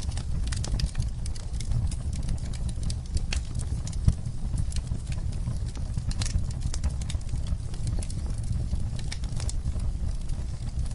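Wood fire crackling in a fireplace: irregular sharp pops and snaps over a steady low rumble of burning, with one louder pop about four seconds in.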